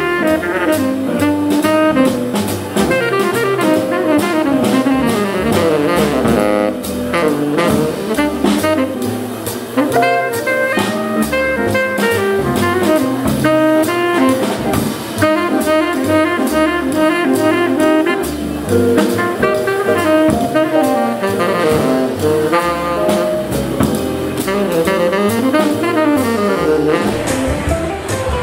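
Live small-group jazz: a tenor saxophone plays the lead line over upright bass and drum kit.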